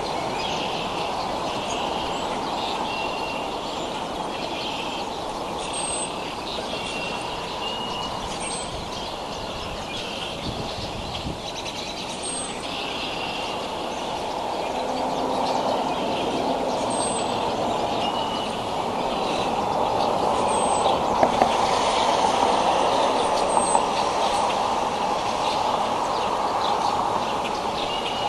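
Steady outdoor background noise with short, high bird chirps repeating every second or two.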